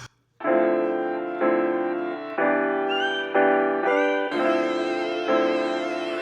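Background music: sustained chords that change about once a second, starting after a brief silence, with a higher layer joining about four seconds in.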